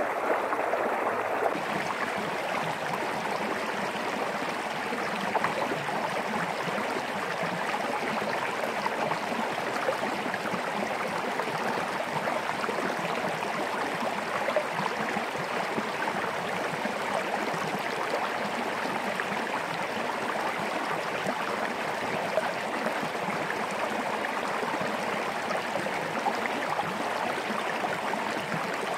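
A small stream of water running and gurgling over rocks in a steady flow.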